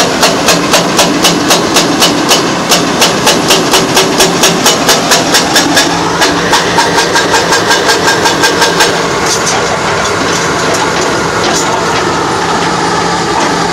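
NPK GH15 hydraulic hammer on an excavator pounding bedrock in a fast, even rhythm of sharp blows, about three to four a second, over the steady running of the excavator's diesel engine. The hammering stops about nine seconds in, leaving the engine running alone.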